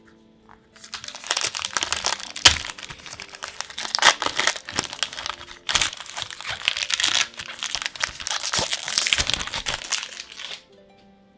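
Foil Magic: The Gathering booster pack wrapper crinkling as it is torn open and handled, for about ten seconds, with several sharper crackles. It stops suddenly near the end.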